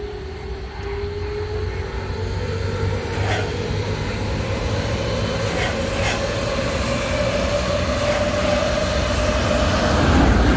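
Electric trains running past on the tracks: a Berlin S-Bahn train with a steady electric motor whine that slowly rises in pitch, a few sharp wheel clacks over the rails, and the noise building throughout. Near the end a Czech Railways Siemens Vectron electric locomotive hauling passenger coaches passes close, the loudest part, with a heavy rumble.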